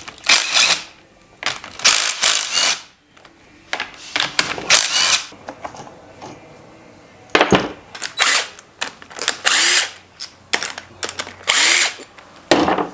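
Cordless impact driver running in about ten short bursts, each under a second, with a rattling hammering, backing out bolts on a Yamaha YZ250 two-stroke engine's cylinder head and cylinder during teardown.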